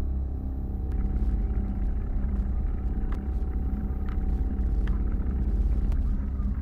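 Low, buffeting rumble of wind and motion on a moving bike-mounted camera's microphone, with a faint steady hum above it and a few small clicks about three to five seconds in.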